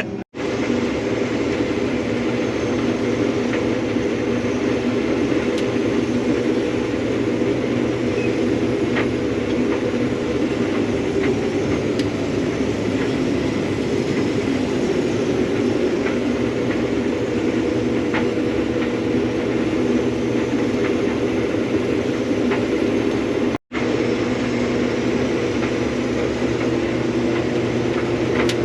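Combine harvester running steadily while harvesting soybeans, a continuous drone of engine and threshing with scattered faint ticks. The sound drops out briefly twice.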